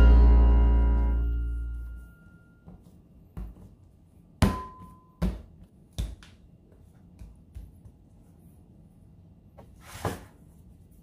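A music track's last chord dies away, then four dull knocks of a glass mixing bowl and a ball of dough being handled on a countertop, the first with a brief ring.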